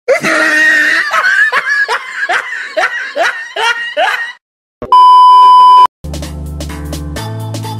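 A high-pitched laugh, a run of about eight falling "ha"s, then a short pause and a loud steady beep lasting about a second, after which background music resumes.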